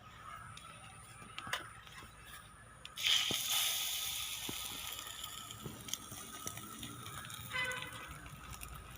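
Bread omelette frying in oil on a dosa tawa: a soft sizzle that jumps suddenly louder about three seconds in and slowly eases off, with a few light clicks.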